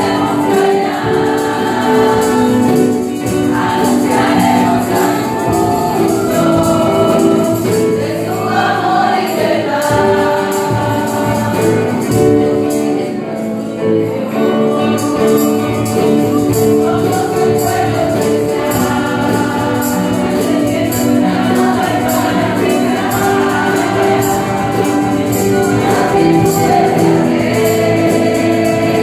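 A women's choir singing a Christian worship song together, one voice leading on a microphone, with instrumental backing.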